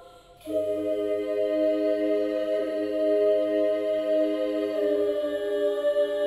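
Slow, solemn background music: a held chord of steady tones, choir- or organ-like, that swells in about half a second in after the previous chord fades out.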